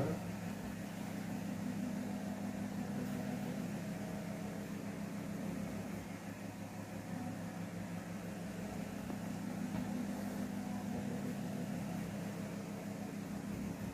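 Steady low hum, unchanging throughout, with no other distinct events.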